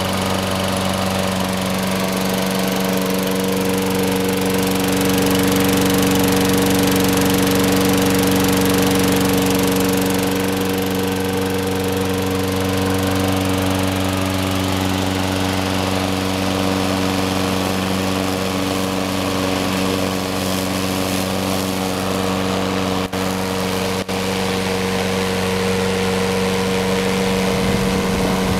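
Sears Craftsman 21-inch mower's 6.5 HP Briggs and Stratton single-cylinder engine running steadily at an even speed.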